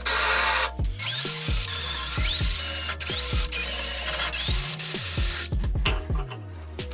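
Cordless drill boring through a steel plate, with a few rising squeals as the bit bites, over background music. The drilling stops about five and a half seconds in, and a few light metallic clicks follow.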